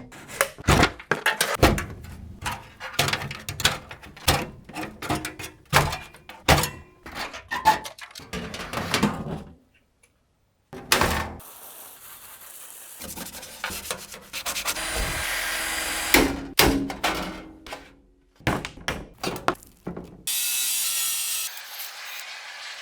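Workshop handling and modding sounds, cut together: a run of knocks, clunks and rubbing as parts are handled and fitted, broken by stretches of steady power-tool or sanding noise.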